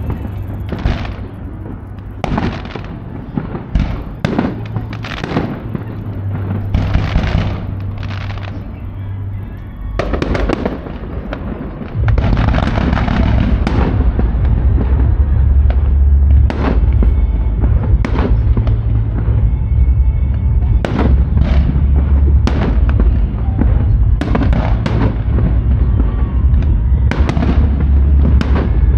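Aerial fireworks shells bursting in a rapid series of bangs, with music playing underneath. The bangs come thicker and louder from about twelve seconds in.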